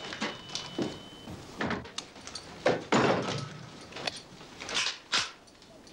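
A scuffle: a string of knocks, bumps and thuds of bodies and furniture, about half a dozen sharp impacts spread unevenly through the few seconds.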